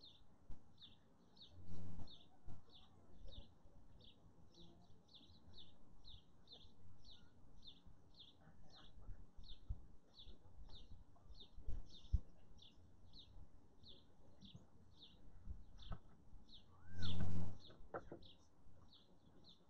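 A bird repeats a short, high chirp at an even pace, about two or three times a second. A brief, louder noise cuts in about three seconds before the end.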